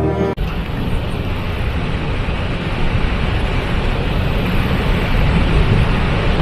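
Waterfall: a loud, steady rush of falling water with a heavy low rumble, starting abruptly about half a second in as the opening music cuts off.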